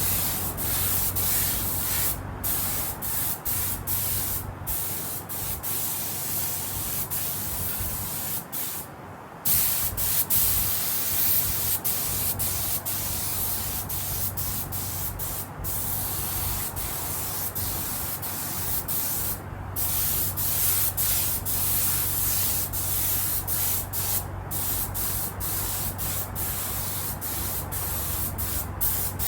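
Leather seat paint being sprayed: a loud hiss in repeated bursts, broken by brief pauses where the spray stops. A steady low hum runs underneath.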